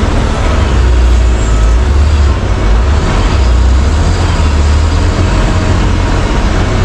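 Heavy diesel mining machinery running under load: a loud, steady, deep engine rumble with a dense mechanical din over it.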